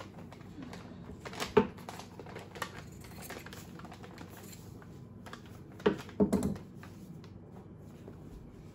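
Handling sounds of cotton shorts and sewing things on a wooden tabletop: fabric being moved, with scattered light clicks and a few sharper knocks, one about one and a half seconds in and a cluster of two or three around six seconds in.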